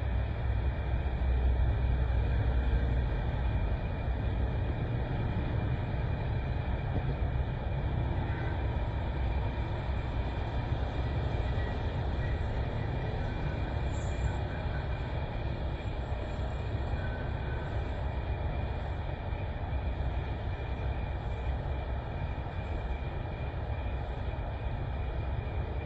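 Diesel engine of a BharatBenz multi-axle tipper truck running steadily at low revs as the truck creeps forward, a continuous low rumble that is a little louder in the first few seconds.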